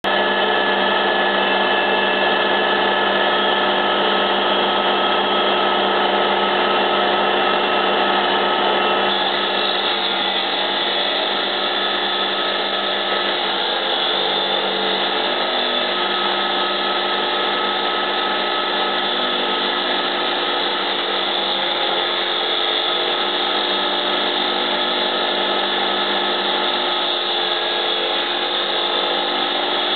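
Walk-behind concrete saw running steadily while its water-fed diamond blade cuts a concrete slab: a loud, even engine and blade drone with a whine on top, easing slightly after about nine seconds.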